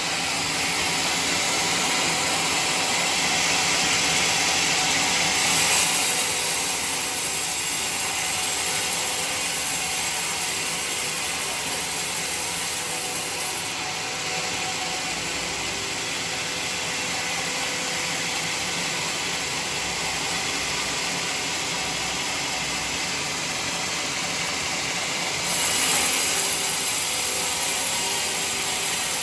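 Band sawmill running steadily, with a dense mechanical hiss whose upper part shifts in level a few times.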